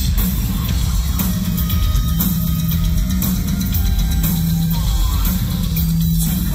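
Industrial rock band playing live, heard from within the crowd: a heavy, bass-laden mix of electric guitar and drums with a held low bass note that keeps returning.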